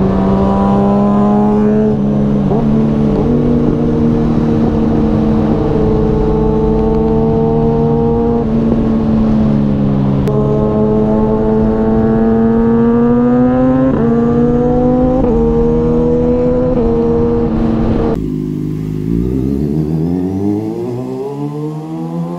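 Kawasaki ZX-6R inline-four with an Austin Racing GP1R slip-on exhaust running hard at high revs while riding, the pitch stepping at several gear changes. About eighteen seconds in it turns quieter and the revs climb steadily as the bike accelerates.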